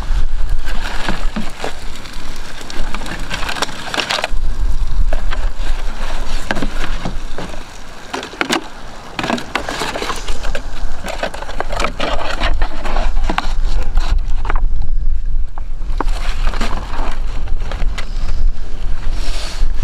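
Dry sticks and brushwood snapping and cracking by hand, many irregular sharp cracks as kindling is broken and piled for a campfire, over a low wind rumble on the microphone.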